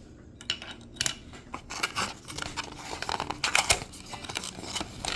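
Packaging being handled and opened: quick, irregular crinkling and crackling that starts about half a second in.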